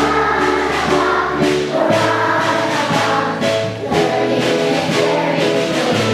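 A group of children singing their school song together over a backing track of sustained instrumental notes and a steady beat.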